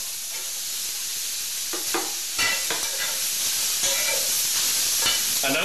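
Vegetables sizzling with a steady hiss in a hot cast-iron skillet, sautéed without oil in a little water, with a few scrapes and knocks of stirring in the pan, the strongest a little past two seconds in.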